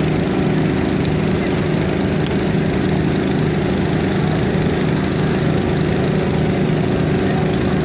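An engine running steadily at an even pitch over a broad hiss. It is the small motor driving the firefighting hoses or the boat they work from.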